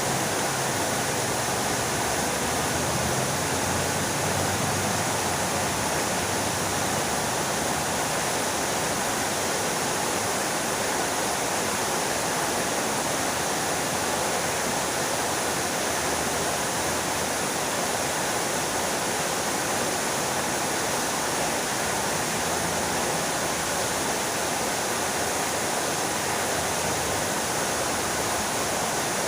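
Fountain water splashing: a steady, even rush of falling water.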